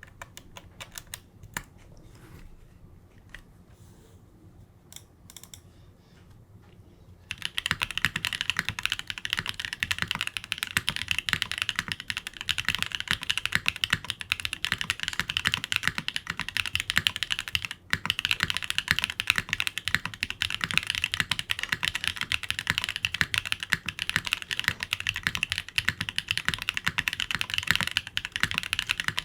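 Typing on an NRD Kaze custom mechanical keyboard with BSUN Guyu switches, a half polycarbonate plate and GMK keycaps. A few scattered single keystrokes come first, then fast continuous typing starts about seven seconds in, with one short pause midway.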